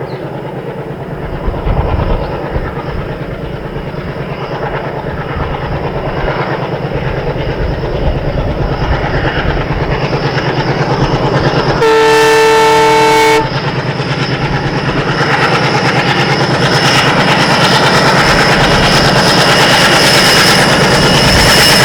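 WDG-3A diesel locomotive's ALCO 251 sixteen-cylinder engine chugging in a steady beat, growing louder as the train approaches. About halfway through, one horn blast of about a second and a half sounds. In the later part, wheel-on-rail noise joins in.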